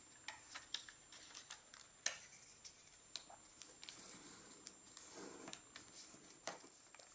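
A sheet of origami paper being collapsed and creased flat by hand, giving faint crinkles and many small crisp clicks, the sharpest about two seconds in, with a soft rustle of sliding paper between about four and six seconds in.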